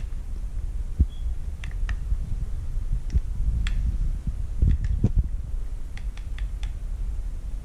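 Scattered small clicks and taps as a hot glue gun is worked around a plastic bottle cap and LED tea light, over a low steady rumble.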